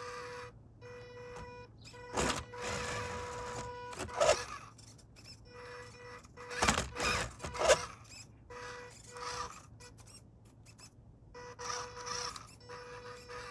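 Small electric motor of a toy RC car whining at one steady pitch, starting and stopping in spurts, with several short knocks and scrapes, the loudest about two, four, seven and eight seconds in.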